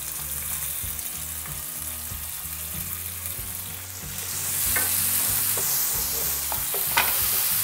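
Chopped tomatoes sizzling in hot oil with browned onions in a nonstick pan on high heat. The sizzle grows louder about four seconds in as the tomatoes land, then a wooden spatula stirs and scrapes the pan, with a couple of sharp knocks.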